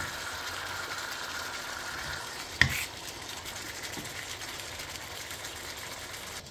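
Raw chicken pieces sizzling in hot oil in a wok, a steady frying hiss. One sharp knock about two and a half seconds in, and a fainter one a little later.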